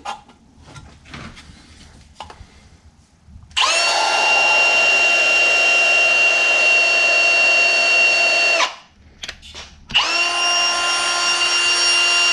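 Power drill spinning an engine valve against its seat through a length of vacuum hose to lap it in, after a few light clicks. It runs at a steady pitch for about five seconds, stops, then starts again about a second later.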